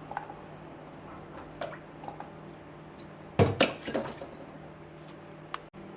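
Freshly washed, wet okra pods being handled and set down on a cutting board: faint small clicks, then a quick cluster of loud knocks about three and a half seconds in and one sharp click near the end, over a steady low hum.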